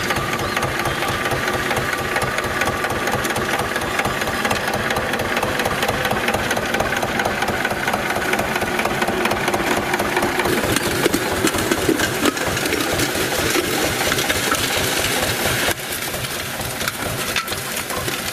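Small farm tractor's diesel engine running steadily with a fast, even chugging as it pulls a disc harrow through tilled soil. The sound drops a little in level near the end.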